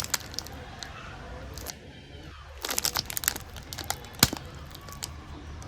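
Plastic snack wrapper crinkling and tearing as it is opened, in scattered crackles with a dense flurry midway and one sharp, loud click near the end.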